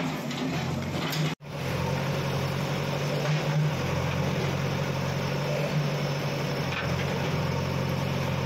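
JCB 3DX backhoe loader's diesel engine running steadily with a low hum, cutting out for an instant about a second in.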